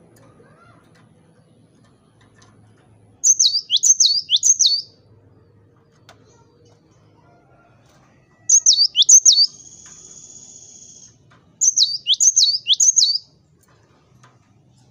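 Cinereous tit (gelatik batu) singing: three bursts of quick, down-slurred whistled notes, the second burst running on into a steady buzzy trill of about a second and a half.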